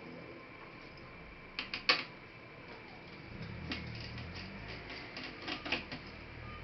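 Sharp clicks and taps of laptop parts being handled during disassembly: a loud pair about two seconds in, then a run of lighter clicks in the second half.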